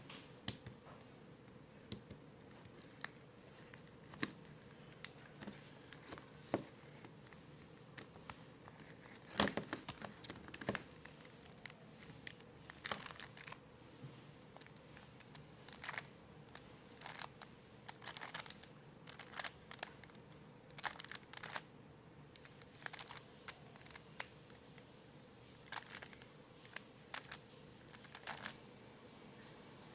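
Rubik's cube being turned by hand: scattered plastic clicks and short runs of quick clacks as the layers are twisted, in irregular clusters.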